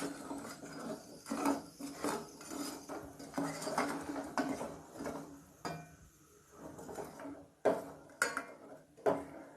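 Spoon stirring jaggery into water in a pan to dissolve it, clinking and scraping against the pan in an irregular string of strokes, with a few sharper clinks near the end.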